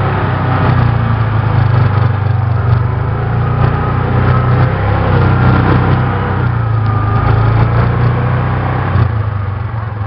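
ATV engines running steadily at low throttle, the nearest one a constant low hum, with a faint higher whine rising and falling about halfway through.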